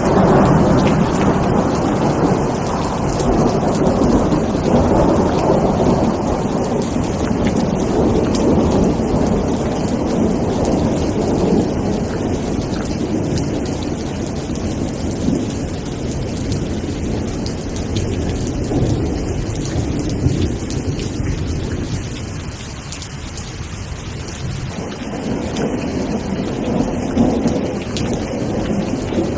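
Steady rain with rolling thunder: a long, deep rumble swells right at the start and slowly dies away over about twenty seconds, and another rumble builds near the end.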